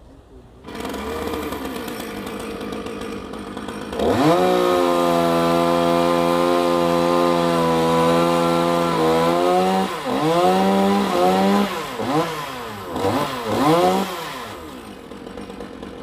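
Chainsaw starting about a second in and running slowly, then revved to a high steady pitch at about four seconds and held for some five seconds, then revved up and down several times.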